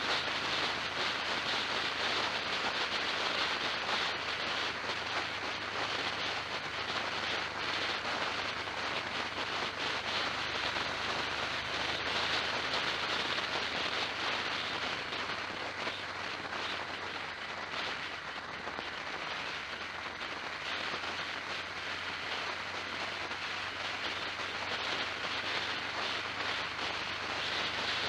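Steady rushing road and wind noise from a vehicle on the move, with a faint low engine hum underneath.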